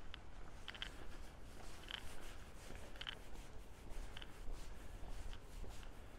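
Wind rumbling on the microphone, with faint short clicks repeating about once a second.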